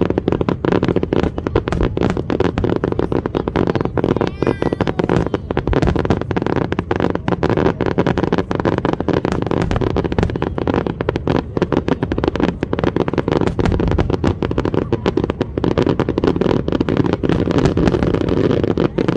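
Aerial fireworks going off in a dense, unbroken barrage: many crackling pops a second from bursting crackle stars, with deeper shell bursts among them.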